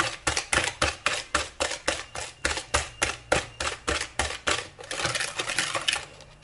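Egg, sugar and melted butter mixture being beaten by hand in a bowl: quick, rhythmic clinks of the utensil against the bowl, about four to five a second, which blur and stop near the end.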